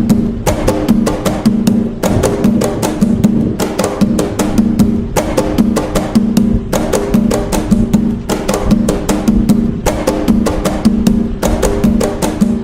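Atabaque hand drums playing the toque nagô rhythm: a fast, unbroken run of strokes in a repeating pattern, with a deep drum tone coming back in every cycle.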